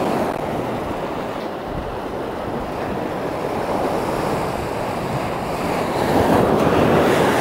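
Sea waves washing on the shore, with wind buffeting the microphone; the surf swells louder about six seconds in.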